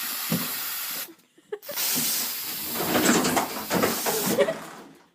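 A cat hissing in two long bursts: one of about a second at the start, and a longer one from about two seconds in, with some throatier sound mixed into it.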